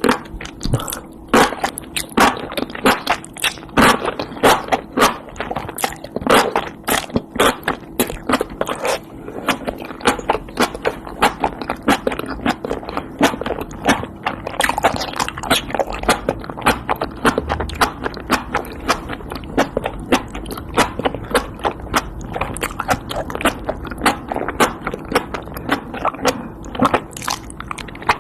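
Close-miked eating: biting and chewing food, with a dense, irregular run of crunchy clicks and crackles.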